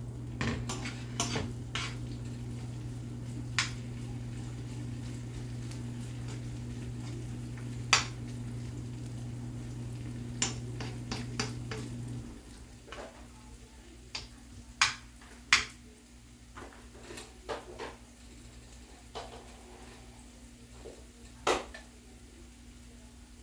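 Metal spoon stirring chopped onion frying in olive oil in a nonstick frying pan, with scattered clinks and scrapes of the spoon against the pan. A steady low hum underneath drops away about halfway through.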